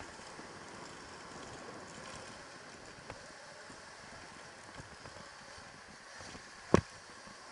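Electric dirt bike riding over a packed-dirt track: a steady rush of tyre and rattle noise, with a small click about three seconds in and one sharp, loud knock near the end.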